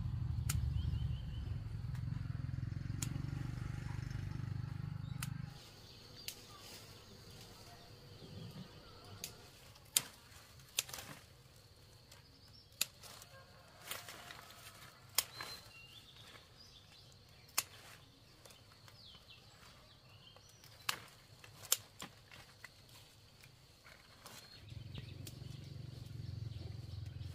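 Outdoor ambience: a low steady rumble for the first five seconds, which stops and returns near the end. In between come a dozen scattered sharp knocks and a few faint bird chirps.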